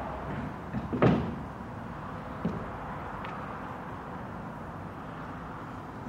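Steady outdoor background noise with a sharp knock about a second in and a fainter knock a little later.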